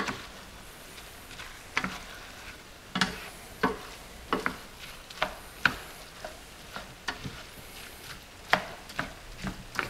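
A slotted spatula stirring rice, chicken and sausage paella in a hot skillet, over a faint sizzle. Its irregular knocks and scrapes against the pan come about one or two a second, loudest right at the start and near the end. The rice is getting tight in the pan.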